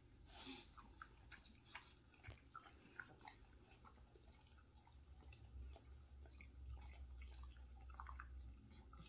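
Faint, irregular clicks and crunches of an American Bulldog chewing small pieces of green vegetable.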